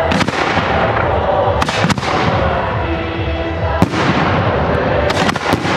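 Fireworks display: aerial shells bursting with sharp bangs every second or two over a continuous din, with a quick cluster of several bangs near the end.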